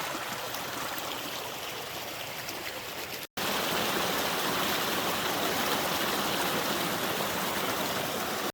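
Creek water flowing steadily. The sound cuts out for an instant a little over three seconds in, then returns louder.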